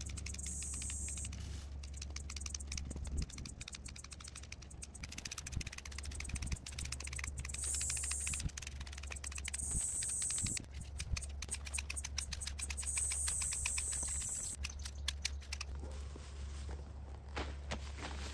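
Curved topiary hand shears snipping rapidly and repeatedly, the metal blades clicking shut through the leafy twigs of a hedge ball.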